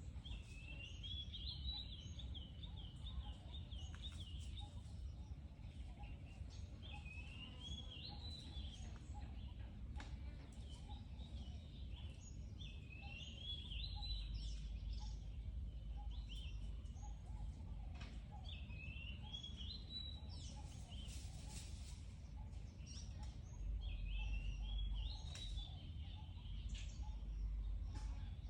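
A songbird singing short, quick warbled phrases, repeated every few seconds, over a steady low rumble that swells twice.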